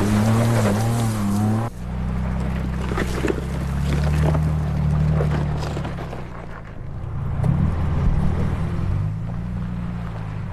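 Ford Bronco Raptor's twin-turbo 3.0-liter V6 running under throttle, its pitch rising and falling. The sound changes abruptly about two seconds in to another stretch of steady engine running, with rises and dips in pitch later on.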